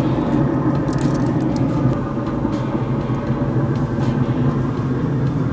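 Steady low hum of a running wood pellet smoker, with a few faint light knocks as raw chuck roasts are laid on its metal grate.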